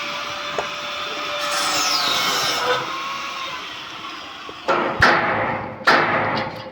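A steady hissing work noise for about the first four seconds, then four sharp knocks in the last two seconds, like hand-tool strikes on a building site.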